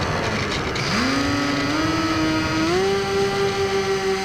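Electric motor and propeller of a Firebird Stratos RC plane, heard from its onboard camera: a rough rush of air and prop noise, then about a second in a whine that rises in pitch and steps up twice more as the throttle is opened, before holding steady as the plane climbs.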